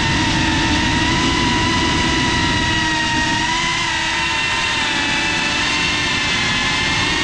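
FPV quadcopter's electric motors and propellers whining steadily, the pitch holding with slight wavers as the drone flies.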